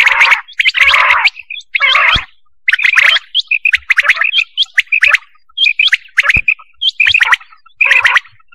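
Quail (batair) calls played as a hunting lure call: clusters of rapid, sharp, repeated chirping notes, each burst under a second long, with short gaps between.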